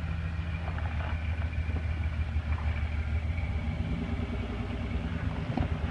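Lifted Jeep's engine running steadily at low revs as it crawls over rocks, picking up slightly about four seconds in.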